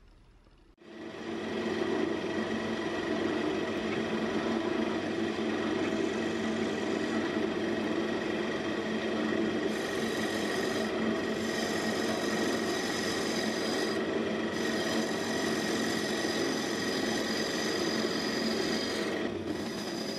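Wood lathe running while a hand-held gouge cuts into the face of the spinning wooden blank: a steady scraping, shaving sound over the lathe's hum. It starts suddenly about a second in and runs on without a break.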